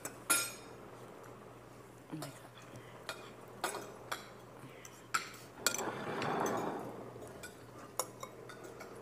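Metal cutlery (fork and spoon) clinking and scraping against plates and bowls during a meal: scattered short, sharp clinks at irregular intervals.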